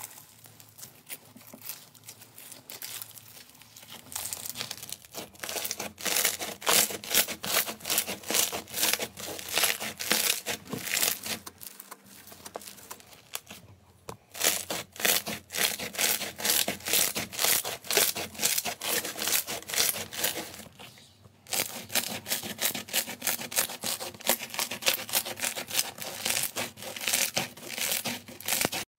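Crunchy grain-textured slime being squeezed, pressed and pulled apart by hand, giving dense, rapid crackling and popping in long runs with two short pauses.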